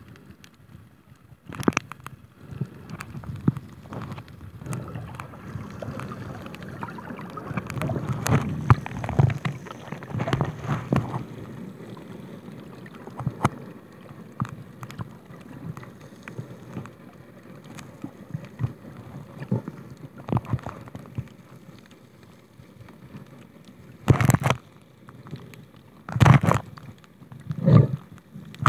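Underwater sound of a camera moving through the water on a reef dive: muffled water rush and gurgling with scattered knocks, and several short, louder gurgling bursts in the last few seconds.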